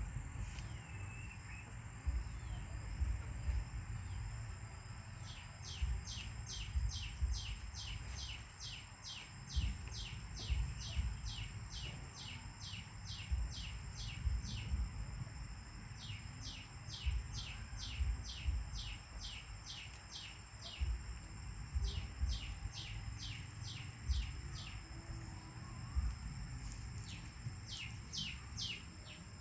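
A bird calling in runs of short, quick chirps that fall in pitch, about three a second, coming and going several times. Behind it there is a steady high whine and a low rumble.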